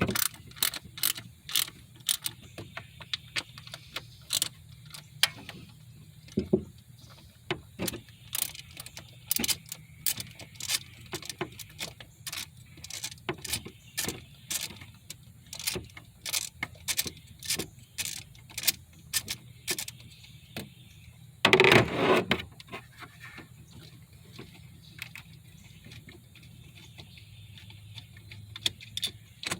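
Hand tools working bolts loose in a car's engine bay: irregular sharp metallic clicks and clinks, a couple a second, with one louder metal clatter about twenty-two seconds in.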